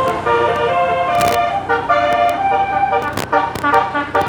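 Bus telolet basuri air-horn set playing a tune, several horns sounding together in steady notes that step from pitch to pitch, with a few sharp clicks between notes.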